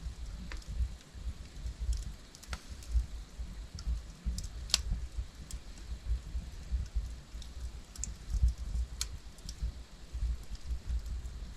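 Logs burning in a fireplace: a low steady rumble of the flames with scattered sharp crackles and pops, the loudest about five seconds in.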